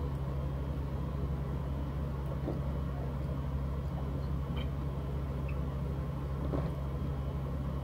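A steady low mechanical hum, with a few faint small ticks.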